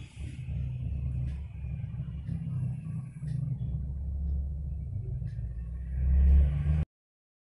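A steady low rumble with a few faint ticks. It swells to its loudest about six seconds in, then cuts off abruptly.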